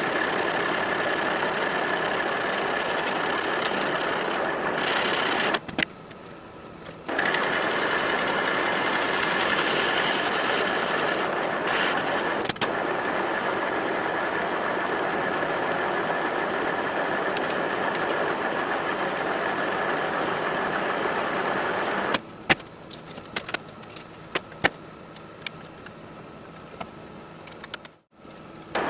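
Manual machine tool running steadily with a constant whine, with a short drop in level about six seconds in. For the last several seconds it is quiet apart from scattered sharp metallic clicks and taps.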